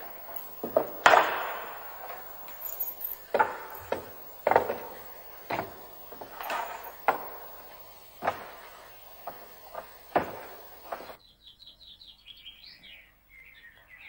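A series of sharp knocks, unevenly spaced about a second apart, each with a short ringing tail. They stop abruptly about eleven seconds in, leaving faint high chirping.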